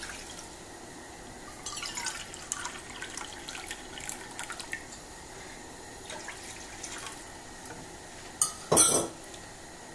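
Water poured from a jug into a small stainless steel cup and tipped into a frying pan, trickling and splashing, with a brief louder noise near the end.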